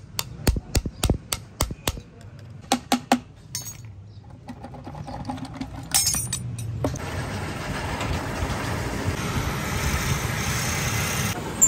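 A quick run of sharp metallic clinks and knocks, about a dozen, over the first three seconds, like engine parts being handled. A steady rushing background noise sets in about seven seconds in.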